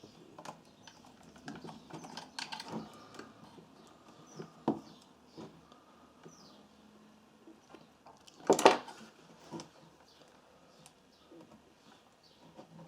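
Small clicks, taps and rustles of multimeter test probes and wiring being handled on a disassembled clothes iron, with one louder rustling knock about eight and a half seconds in.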